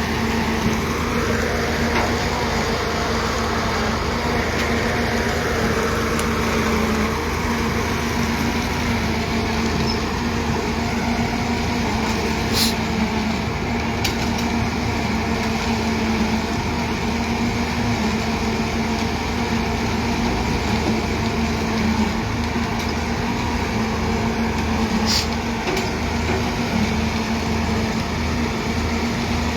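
Heavy diesel engine of construction plant, such as a concrete mixer truck, running steadily under load at a constant speed, with two short sharp clicks about twelve seconds apart.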